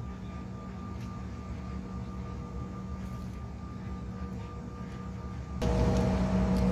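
Cabin noise of a Bombardier CRJ1000 taxiing, its rear-mounted GE CF34 turbofans giving a steady hum with a few thin whining tones. Near the end the noise suddenly gets louder and a new whine joins in.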